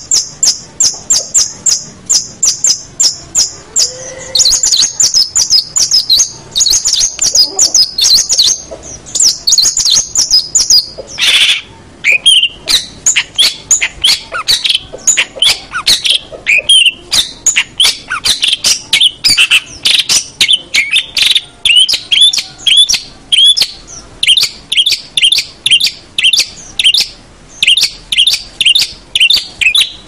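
Long-tailed shrike (cendet) singing: a rapid run of short, high repeated notes, about five a second, that shifts about four seconds in into varied, faster phrases lower in pitch. One longer, harsher call stands out about eleven seconds in.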